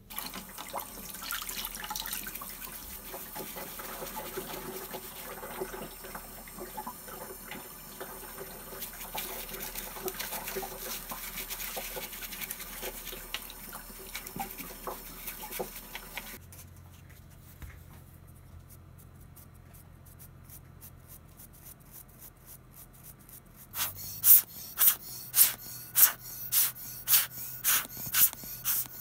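Tap water running into a sink while a stiff paintbrush scrubs a plastic webcam housing, with rapid brushing strokes. After the water stops there is a quiet stretch, then about a dozen sharp clicks near the end, roughly two a second, which are the loudest sounds.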